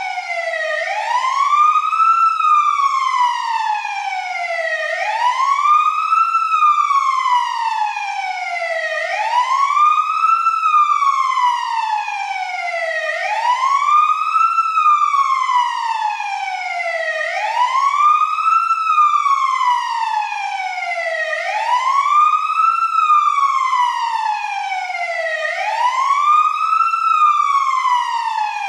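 Fire truck siren sounding a wail: the pitch sweeps up quickly, then slides down slowly, repeating about every four seconds.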